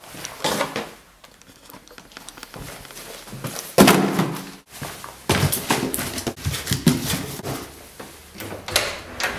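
Ring binders and papers dropped into a cardboard box with a loud thud about four seconds in, followed by knocks and rustling as the box is handled. Near the end a door handle and latch click.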